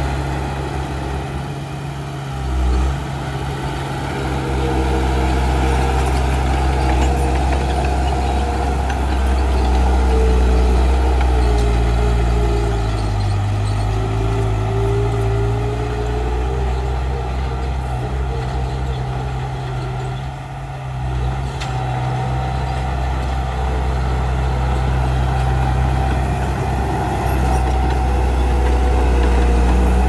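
Komatsu D31 bulldozer's diesel engine running steadily, its pitch and loudness rising and falling as it works, with a short dip about two-thirds of the way through.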